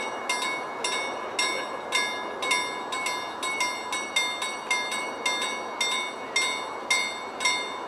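Level crossing warning bell ringing in a steady, fast repeated rhythm, each strike leaving a clear metallic ring. It warns road traffic that the crossing is closed for a train.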